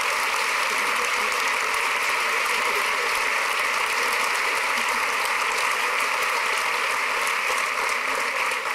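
Large crowd applauding, a steady dense clapping that eases off near the end.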